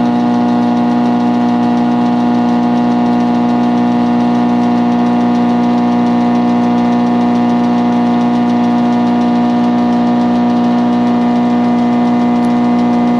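Wadkin MJ planer running steadily with an even, unchanging hum and no change in speed or load.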